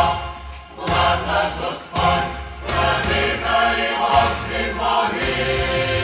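Mixed choir of men's and women's voices singing a hymn in Ukrainian in full harmony, with short breaks between phrases about half a second and two seconds in.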